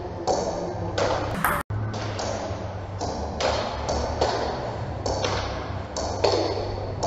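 Table tennis ball hit back and forth in a rally: sharp clicks of the ball off the rubber-faced paddles and its bounces on the table, about one every half second or so, broken once by a split-second dropout.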